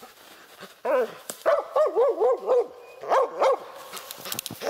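Laika hunting dog barking up at a marten treed in a birch, the steady baying of a dog holding game in a tree. A single bark about a second in, then a quick run of about six barks, then two more.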